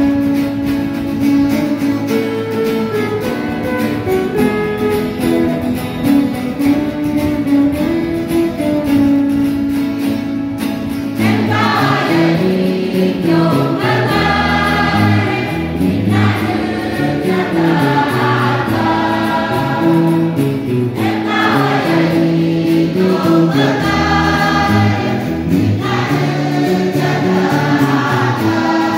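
Guitars playing a hymn tune, then a choir comes in singing about eleven seconds in, with the guitars and a bass line accompanying.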